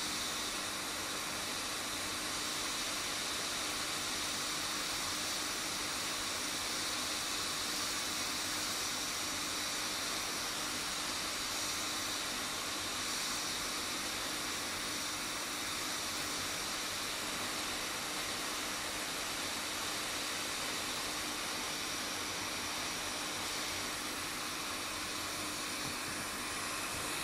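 Budget hot air rework station blowing a steady hiss of hot air, with a faint fan hum underneath, as it heats the solder of a tablet board's charging connector to desolder it.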